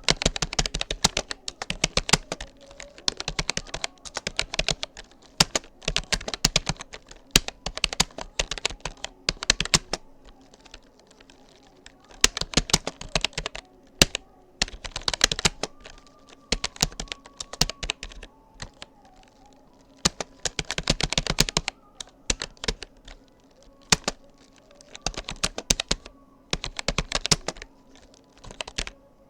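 Touch typing on a Rapoo computer keyboard: rapid runs of key clicks broken by brief pauses.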